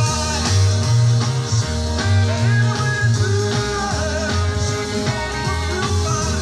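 Rock music with a steady bass beat.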